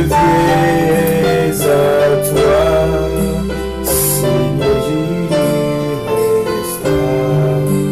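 Slow gospel hymn sung with keyboard accompaniment, in long held notes.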